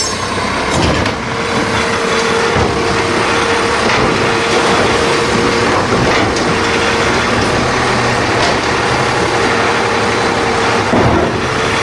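Automated side-loader garbage truck running at the kerb while its mechanical arm lifts a wheeled bin, dumps it and sets it back down, with a steady hum over the engine noise and a few clunks.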